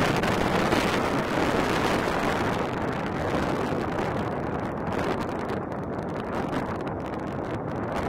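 Wind blowing across the microphone: a steady, rough rushing with a low rumble, its hiss softening a little after about three seconds.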